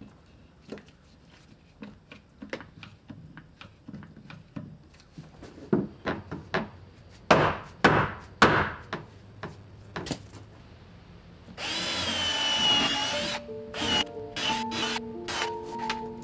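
Hammer knocking on white oak boat planking: light knocks at first, then several heavy blows. About twelve seconds in a cordless drill runs for just over a second, and then music comes in.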